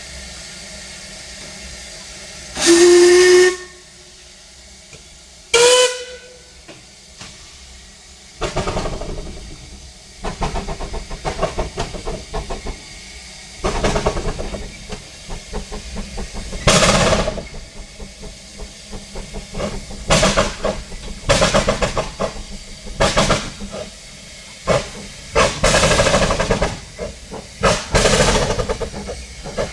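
Two Hunslet narrow-gauge saddle-tank steam locomotives starting a heavy double-headed train: two whistle toots of different pitch, the second shorter, then exhaust beats begin about eight seconds in, uneven and breaking into fast runs of chuffs as the driving wheels slip on the rail.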